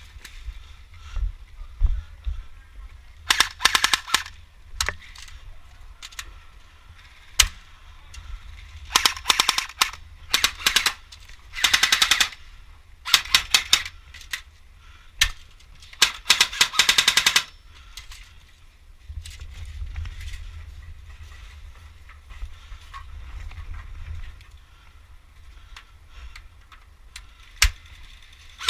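Airsoft guns firing in rapid full-auto bursts, sharp quick pops with a few single shots, in several bursts through the first two-thirds and then dying away.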